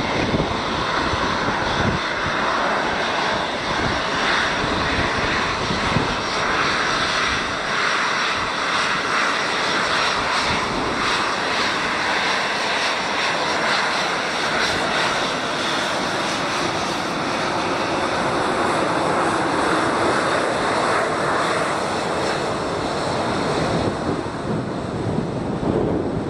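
Boeing 737-800 on its takeoff run, its CFM56-7B turbofans at takeoff thrust making a loud, steady jet noise. A faint high whine sits above it and fades out about two-thirds of the way through.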